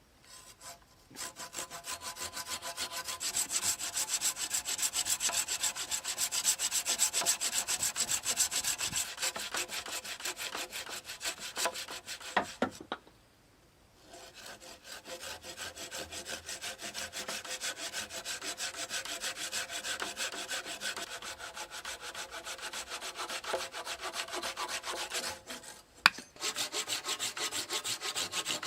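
Hand saw cutting wood in steady rapid strokes, stopping briefly about 12 seconds in and again near the end. A single sharp knock comes just before the last run of strokes.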